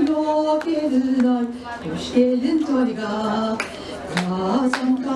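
A woman singing into a handheld microphone, holding long notes that slide between pitches, with sharp hand claps keeping time in the second half.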